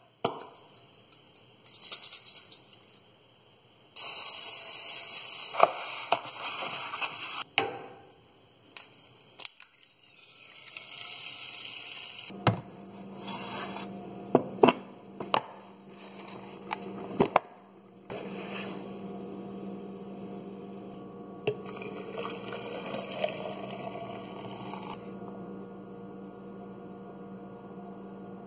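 Kitchen work during breakfast and French-press coffee making. There are stretches of hiss and sharp clinks and knocks of utensils and dishes, and from about halfway through a steady electrical hum.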